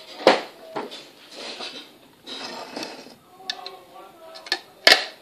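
Plastic Snackeez cup handled close to the microphone: a sharp knock about a third of a second in and a louder one near the end, with rubbing and rustling between.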